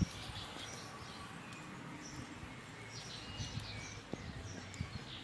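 Birds chirping, with several short high calls and one brief whistled note about three seconds in, over steady outdoor background noise.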